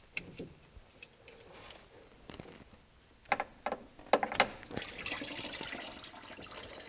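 Sharp plastic clicks and knocks as the quick-connect fitting on a BMW E90's automatic transmission cooler coolant hose is worked loose. About five seconds in, coolant starts pouring from the opened hose in a steady stream, splashing into a drain pan of coolant.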